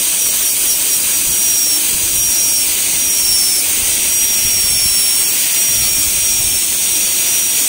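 High-speed air-turbine dental handpiece running steadily, its bur cutting a model central incisor to join the depth orientation grooves: a high-pitched whine over a constant hiss.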